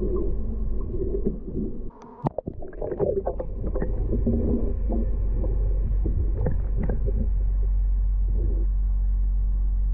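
A few knocks and scrapes as a waterproof camera is handled, then from about four seconds in the steady, muffled low rumble of the pond heard from under water through the camera housing.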